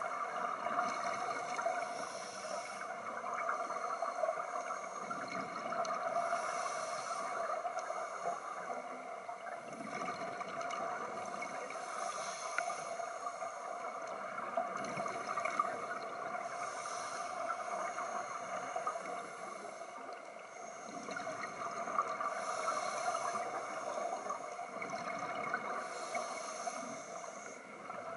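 Underwater sound of divers breathing through scuba regulators: a hiss of air on each breath and a gurgling rush of exhaled bubbles, repeating every few seconds.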